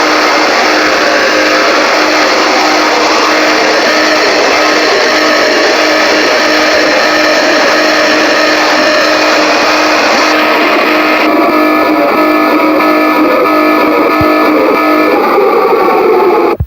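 Loud, harsh distorted noise with a steady low tone running through it, the audio of a mock Emergency Alert System alarm. About two-thirds of the way through the upper range cuts away and the sound thins, and it drops out abruptly at the very end.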